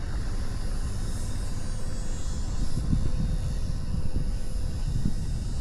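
Wind buffeting the microphone over a steady low hum, typical of a cruise ship's machinery heard on deck.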